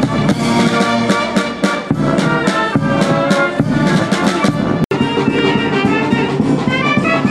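Military brass band playing, trumpets, trombones and tubas over a steady drum beat. About five seconds in the sound cuts out for an instant, and the music resumes with a higher melody.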